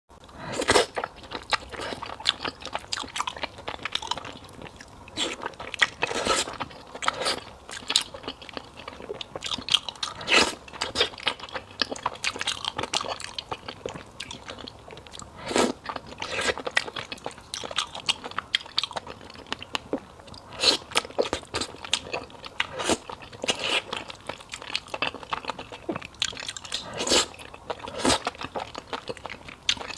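A person chewing and biting fried beef noodle soup, with many sharp crunches coming at irregular moments.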